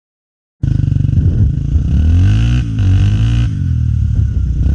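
Honda XR 250 Tornado's single-cylinder four-stroke engine running, cutting in abruptly after a short silence. Its pitch rises and falls as it revs between about one and a half and three and a half seconds in, then holds steady.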